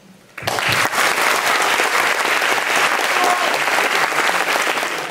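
Audience applause, breaking out about half a second in and dying away near the end.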